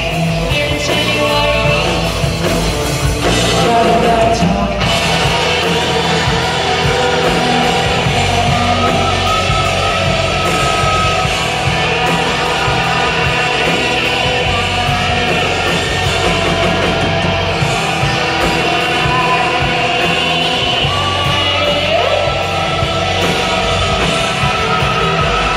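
Live rock band playing loud and without a break: electric guitars, bass guitar and drum kit, with a singer's voice at times.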